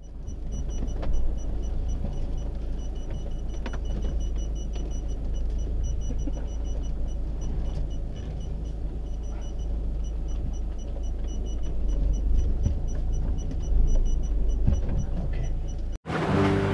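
A road vehicle driving: a steady low rumble of engine and road with a few light knocks, cutting off abruptly near the end.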